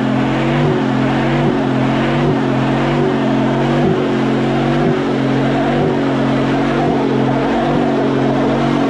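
Engine held at high revs during a burnout, its pitch steady with slight dips about once a second.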